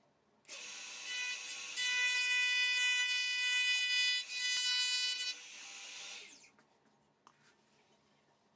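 Small high-speed router motor, a trim router, starting up and running with a steady high whine while its bit cuts a slot in a wooden board. It grows louder for a few seconds in the middle, then is switched off and winds down with a falling whine about six seconds in.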